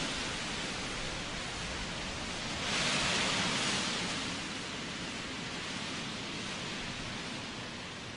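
Storm wind rushing over the river, a steady noise that swells in a stronger gust about three seconds in.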